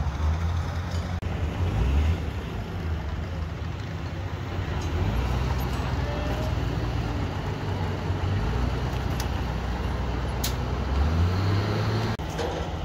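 An engine running steadily in the background with a low rumble, its pitch rising briefly near the end. A single sharp click about ten and a half seconds in.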